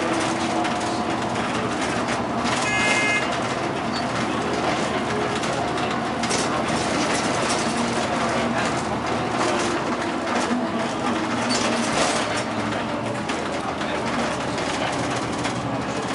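Bus driving along a country road, heard from inside the cabin: steady engine and road noise with frequent rattles and clicks from the interior. A short high tone sounds briefly about three seconds in.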